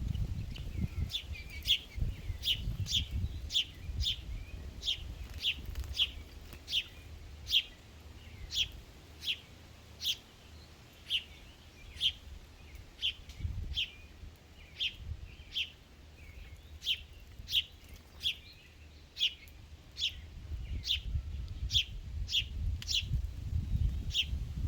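A bird calling a long series of short, sharp, high chip notes, each dropping quickly in pitch, about two a second. A low rumble sits under the calls near the start and again near the end.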